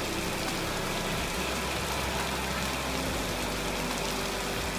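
Heavy tropical downpour pouring steadily, an even hiss of rain on the ground and surfaces, with a low steady hum underneath.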